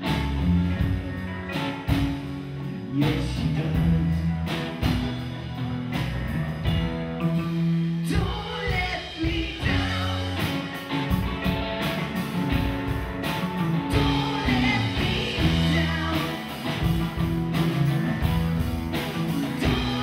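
Live rock band playing: electric guitar, bass, drum kit and keyboard, with a lead singer.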